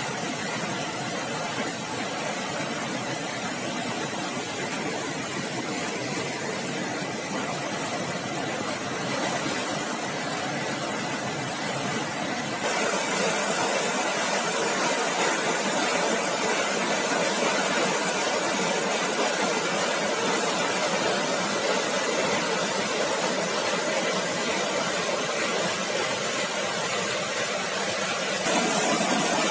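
Steady rushing of a river swollen by heavy rain. It gets louder abruptly about halfway through and again near the end.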